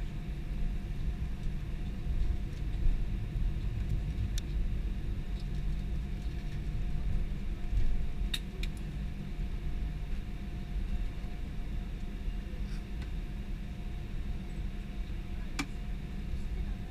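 Airbus A320 cabin noise while taxiing after landing: a steady low rumble from the idling engines and the wheels rolling, with a faint steady whine and a few light clicks and rattles from the cabin.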